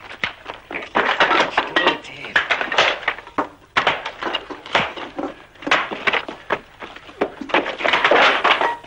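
Scuffle in a fight: a dense, irregular run of knocks, thuds and clatter as bodies and objects crash about, with the loudest flurry near the end.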